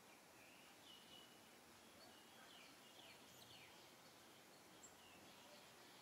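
Near silence, with faint, short, high-pitched animal chirps scattered throughout, some held briefly on one note and some sliding down.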